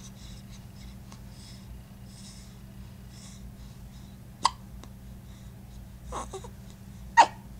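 Newborn baby hiccuping: short, sharp hiccups about four and a half seconds in and around six seconds, and the loudest one near the end.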